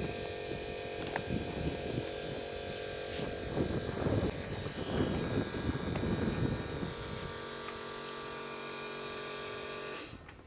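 Steady mechanical hum of several held tones with an uneven low rumble over it, strongest in the middle, ending abruptly at a cut near the end.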